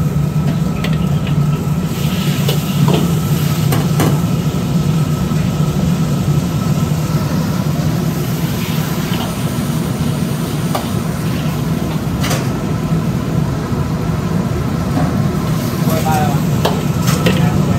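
Steady low roar of a restaurant wok range's gas burners and exhaust hood, with a metal ladle knocking against the wok now and then as noodles simmer in broth.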